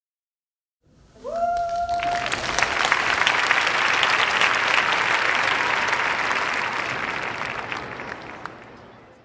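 Audience applauding. It starts suddenly about a second in with a single rising cheer from one voice, holds strong, and fades out near the end.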